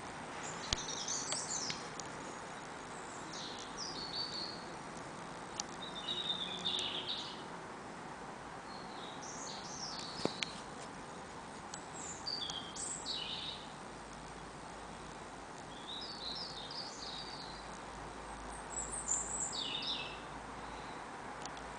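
A songbird sings short, high warbling phrases, a new one every two to three seconds, over a steady background hiss.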